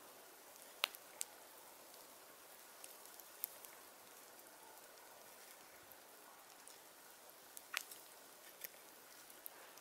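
Hook knife (a Mora spoon knife) cutting into soft spruce to hollow out a spoon bowl: a handful of faint, sharp clicks spaced irregularly, a second or more apart, as the curved blade bites in and shavings break off.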